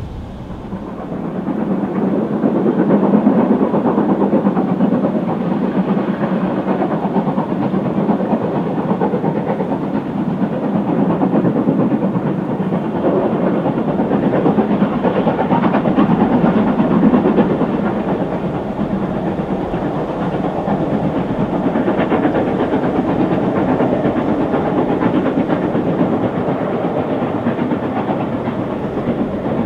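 Two steam locomotives, LNER K1 2-6-0 62005 and a second engine, double-heading a passenger train, working steadily with continuous steam exhaust and wheel-on-rail noise. The sound builds over the first couple of seconds, then holds.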